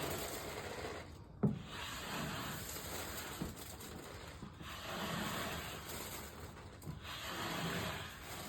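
Popcorn ceiling texture being scraped off the ceiling in long rasping strokes, about four of them, with a sharp knock about a second and a half in.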